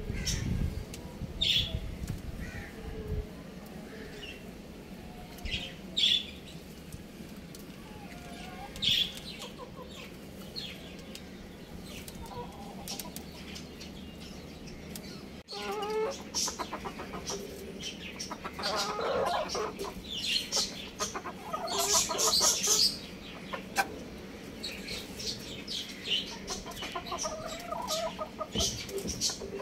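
Young roosters clucking and calling, with a few short high calls several seconds apart at first. After an abrupt change about halfway, the calls come thicker and overlap.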